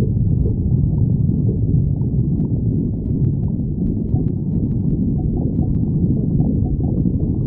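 Stomach growling and gurgling in a continuous deep, muffled rumble, with a few faint ticks in the middle.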